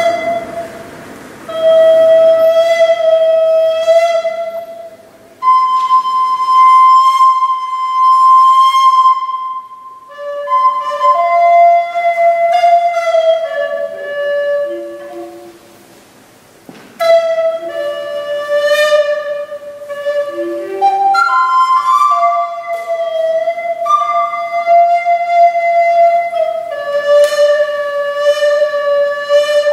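Solo recorder playing long held notes separated by short pauses, with stretches of quicker note changes in the middle.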